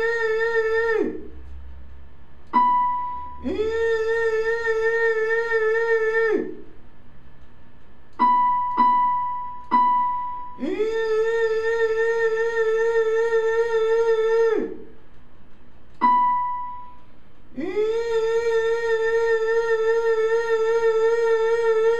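A man sings long held 'ee' notes with vibrato, four times, each scooping up into pitch. Between them a keyboard strikes single short notes on B5, an octave above his voice, five times in all. He is matching by voice the B5 note of the cardinal's call.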